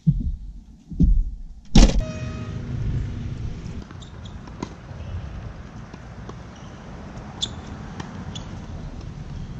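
A car's rear hatch pulled down and slammed shut, a loud thud with a brief metallic ring about two seconds in. Then a steady outdoor rumble with a few sharp racket strikes on a tennis ball.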